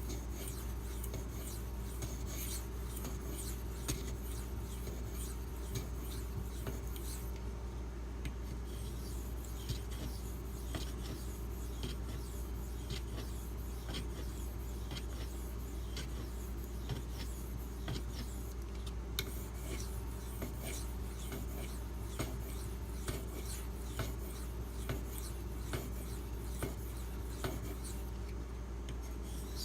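Steel knife blade stroked repeatedly across a 2500 grit silicon carbide sharpening stone: a run of scraping passes, about one or two a second, at the finishing stage of the edge.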